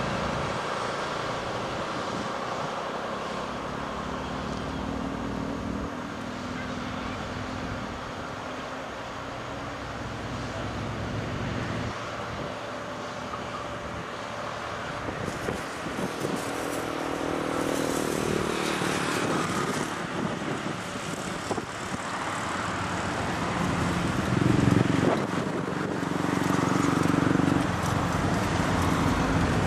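Narrow-gauge diesel railcars coupled in multiple, their engines running steadily as the train moves off. The sound grows louder and fuller near the end as the train draws closer.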